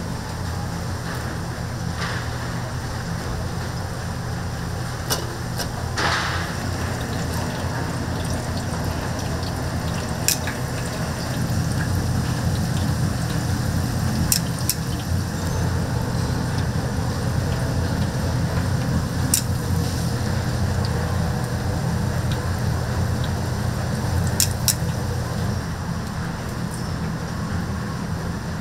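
Chicken deep-frying in oil, a steady sizzle over a constant low hum, with a few sharp clicks.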